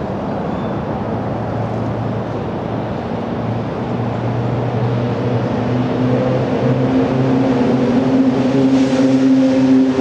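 Engine running: a steady low hum, joined about halfway by a higher engine tone that builds as the sound grows louder.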